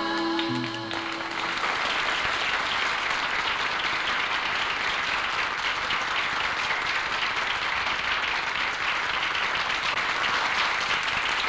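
Audience applauding steadily after a song, with the band's final held note dying away in the first second or so.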